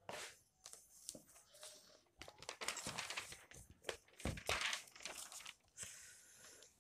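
Faint, irregular rustling and crinkling handling noise, with a couple of soft knocks a little past the middle.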